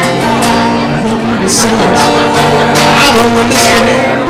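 Acoustic guitar played live, with a voice singing over it.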